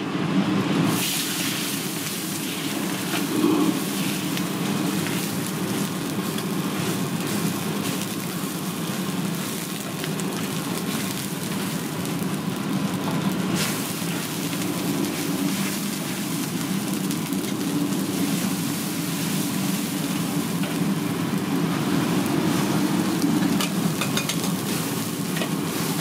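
Commercial wok range burner running with a steady low rush, while water runs from the wok-station tap and liquid sizzles and boils in the hot wok as it is ladled and vegetables are blanched.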